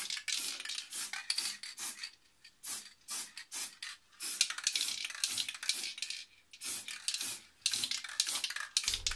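Aerosol can of wax spray being shaken hard, its mixing ball rattling against the can about three times a second, with a few brief pauses, as it is mixed before spraying.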